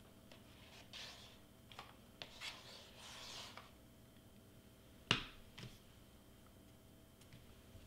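Faint handling of cardstock being lifted and slid while hot glue is run along it: a few soft swishes and small clicks. About five seconds in comes a sharp knock, the loudest sound, followed by a smaller one.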